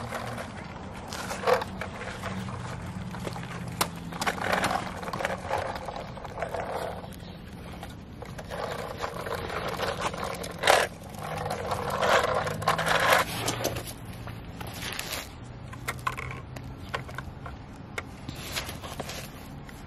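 Toy garbage truck's wheels rolling and scraping over a concrete step in several pushes, with a few sharp clicks and knocks, the loudest just before the middle.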